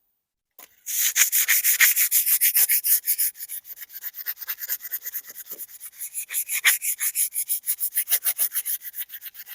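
60-grit sandpaper scrubbing fast back and forth over the steel plate of a hand saw wet with WD-40, sanding off surface rust. The harsh, gritty strokes come several a second and start about a second in.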